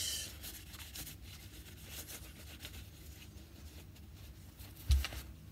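Faint rubbing of tissue paper wiping excess oil off a reassembled Glock pistol, with one dull thump near the end.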